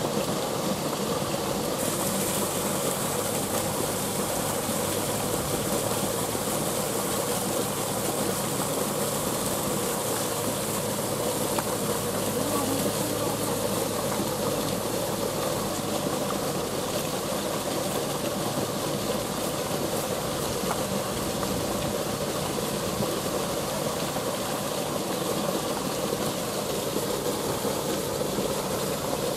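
Steady rush of water flowing and tumbling down a small drop in a channel, unbroken throughout.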